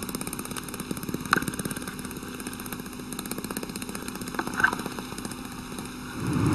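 A dog making a low, rapidly pulsing rumbling grumble, with two brief squeaky whines, one about a second in and one about four and a half seconds in.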